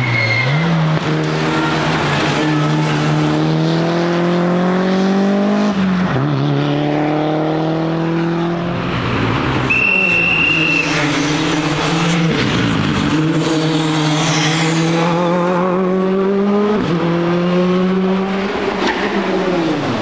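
Rally cars on a tarmac special stage, a Toyota Celica and then a Ford Fiesta rally car, driven flat out past the roadside. The engine note climbs and falls back sharply at each gear change several times, with a brief high squeal about ten seconds in.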